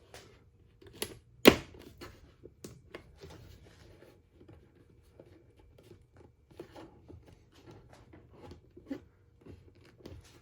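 Plastic mirror cap being pressed and worked onto a car's side-mirror housing: scattered light clicks and rubbing, with one sharp snap about one and a half seconds in.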